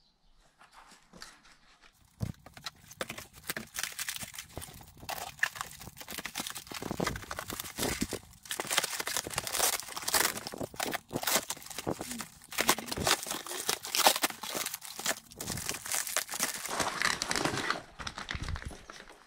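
Cardboard shipping box and plastic packaging being pulled apart and handled: dense rustling, crackling and tearing that starts about two seconds in and dies away near the end.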